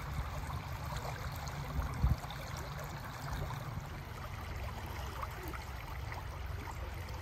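Shallow river current running over and around rocks, a steady rushing, under a low rumble, with a thump about two seconds in.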